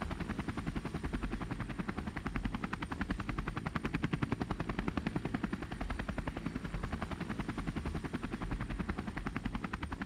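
Helicopter rotor sound effect: a rapid, even chopping of the blades that holds steady throughout.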